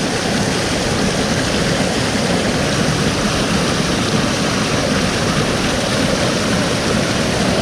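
Steady rushing of a waterfall and creek water, a loud even noise with no breaks.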